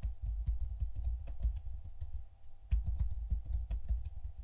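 Typing on a computer keyboard: an irregular run of keystrokes, a short lull about two seconds in, then more quick keystrokes.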